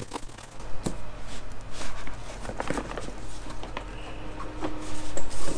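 A small cardboard box handled and turned over in the hands: scattered taps, knocks and scrapes of cardboard.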